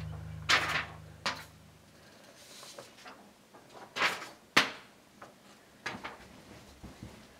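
Paper sheets being handled and swapped: a series of short rustles and flaps, the sharpest about half a second in and again around four and four and a half seconds, with fainter rustles near the end.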